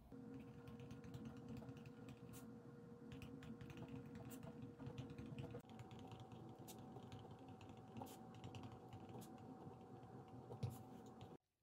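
Ballpoint pen writing in a paper notebook: faint, continuous scratching with small ticks and a sharper tap near the end. It cuts off suddenly just before the end.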